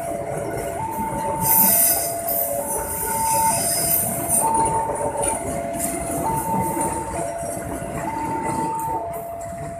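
Train of stainless-steel passenger coaches rolling through a level crossing, its wheels squealing from about one and a half to four seconds in. Over it the crossing's electronic warning alarm alternates steadily between two tones, changing pitch about every 0.7 seconds.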